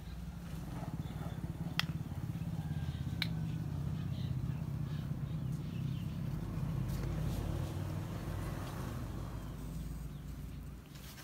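A low engine hum that grows louder through the middle and fades near the end, with two sharp clicks in the first few seconds.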